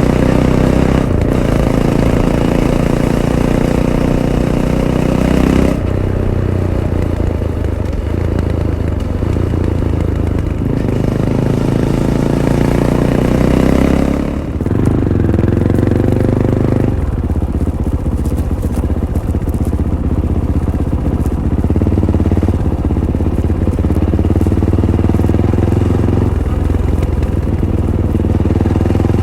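Fantic Caballero 500's single-cylinder engine running through its stock Arrow exhaust under way, climbing in pitch and shifting gear several times, with a brief throttle-off dip about halfway.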